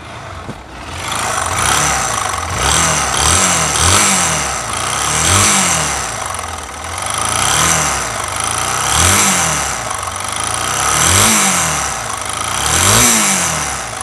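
Bajaj Pulsar NS160's single-cylinder engine revved in about seven throttle blips, its pitch rising and falling with each. It has a bad, harsh noise that the mechanic puts down to poor oil circulation from a failed oil pump, which has left the engine seized and the rocker arms worn.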